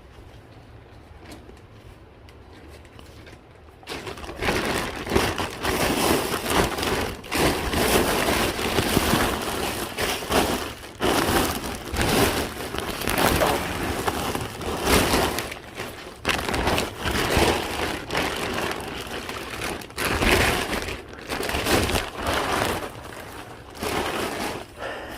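Bags and packaging being rummaged through: a low hum, then from about four seconds in, continuous loud crinkling and rustling with many sharp crackles and brief pauses.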